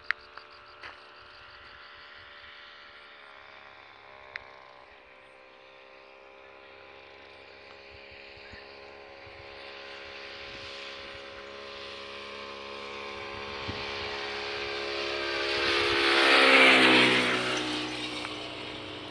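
A small engine vehicle passing by on a dirt road: a steady engine drone grows louder over several seconds, is loudest near the end, then drops in pitch as it goes past. Two sharp clicks sound at the very start and about four seconds in.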